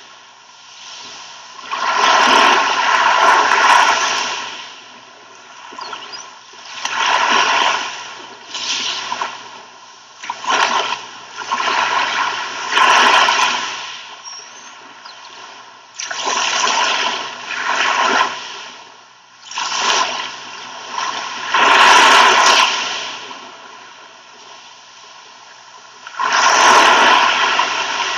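Sea waves breaking and washing up a beach, the surf swelling and falling away in surges every two to four seconds.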